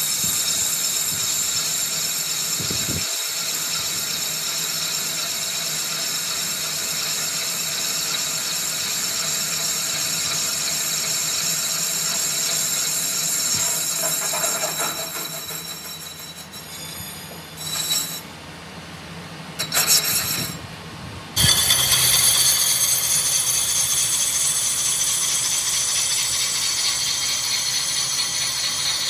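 Metal lathe turning a brake disc, the cutting tool shaving chips off the spinning face: a steady cutting noise that drops away for a few seconds past the middle, then comes back suddenly with a different tone.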